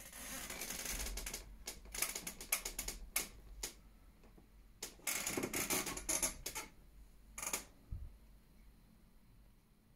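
Small clicks and rustles in four irregular bursts with short pauses between them; the last burst, near the end, is brief.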